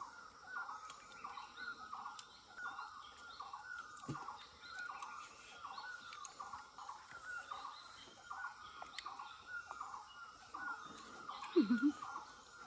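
A bird calling over and over, short falling notes at about two a second, fairly faint. A short, louder, low-pitched sound comes near the end.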